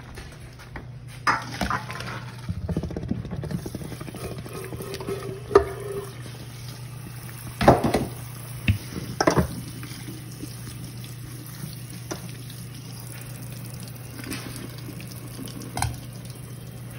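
Tap water running into a stainless steel sink over cooked noodles in a metal colander, with several sharp clanks of pot and colander against the sink, the loudest about eight seconds in.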